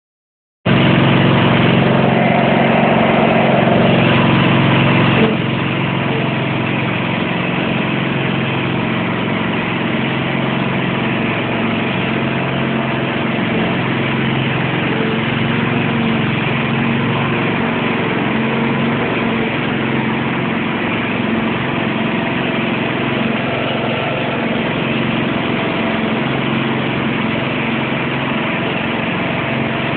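Small single-cylinder-type garden tractor engine running steadily, somewhat louder for the first five seconds and then settling to a slightly lower, even running note.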